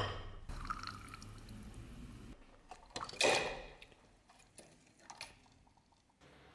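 Torch-heated steel part quenched in a bucket of liquid: a short hiss about three seconds in that fades within about half a second, with drips and small splashes around it.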